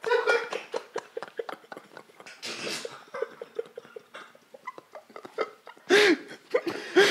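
Several men laughing helplessly, in short breathless pulses and gasps, with a louder burst of laughter about six seconds in.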